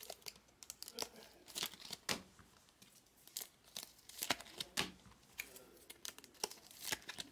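Clear plastic wrapping on a pack of baseball cards being torn and crinkled by hand: irregular sharp crackles and short rips.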